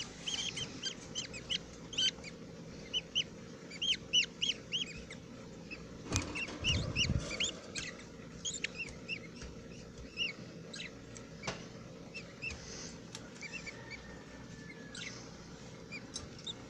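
Budgerigars chirping: short, high chirps repeated irregularly, sometimes several a second. A low rumbling bump comes about six to seven seconds in.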